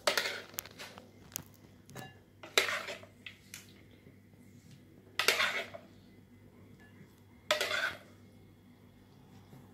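Metal spoon scooping salad out of a plastic bowl and onto a plate, scraping and clinking in four short bursts about two and a half seconds apart.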